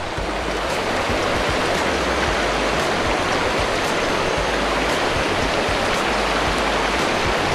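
A rocky river rushing steadily, a continuous even noise of flowing water.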